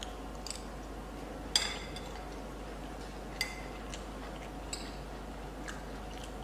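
Cutlery clinking against dishes during a meal: about five light clicks, the loudest a ringing clink about a second and a half in and another about halfway through.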